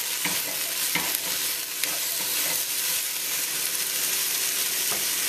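Chopped vegetables sizzling in hot oil in a deep enamel soup pot as a silicone spatula stirs them, with a few soft scrapes of the spatula over the steady hiss.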